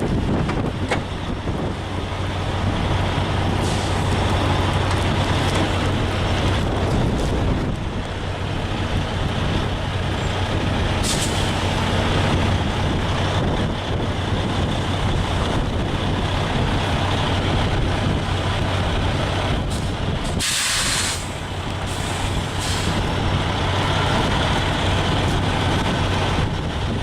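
Semi truck's diesel engine running steadily under windy noise, with a short hiss of air brakes about twenty seconds in.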